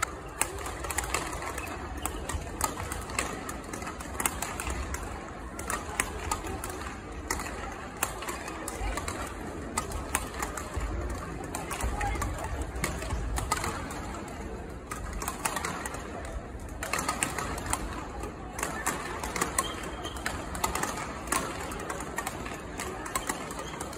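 Badminton rackets striking shuttlecocks, a rapid, irregular series of sharp hits from a drill and the neighbouring courts, with voices in the background.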